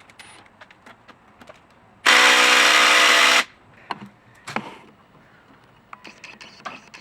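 A power tool runs in one loud burst of just over a second, about two seconds in, followed by a few light metallic knocks and clicks of parts being handled.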